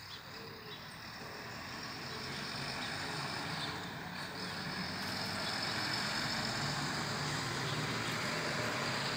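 Road vehicle noise, engine and tyres, growing louder over about five seconds and then holding steady.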